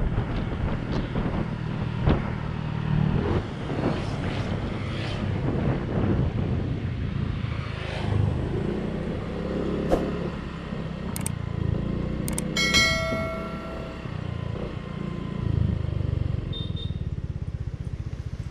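Motorcycle engine running under way on the road, its level rising and falling with the throttle. A brief pitched tone sounds once a little past the middle.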